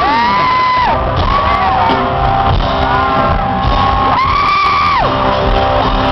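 Loud concert music in an arena, with many fans screaming over it in long, high screams that rise, hold and fall again and again.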